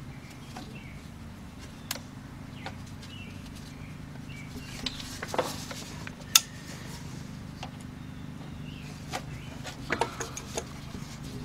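Scattered clicks and small knocks of pliers working a hose clamp onto a return line, with one sharper knock about six seconds in, over a steady low hum.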